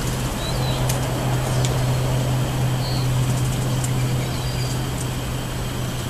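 Steady low mechanical hum, like an engine running or traffic, with a few brief, faint, high chirps and ticks from small birds over it.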